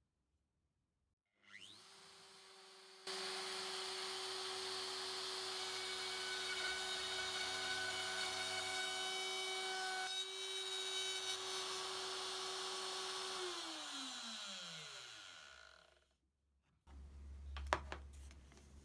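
DeWalt compact router running at a steady high pitch while routing a slot in oak, then switched off and winding down, its pitch falling over about two seconds. A few light clicks and knocks follow near the end.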